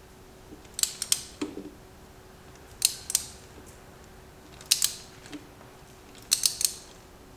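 Ratchet wrench working on the spark plugs and coil packs of a 2JZ-GTE engine: short bursts of two or three sharp clicks about every two seconds.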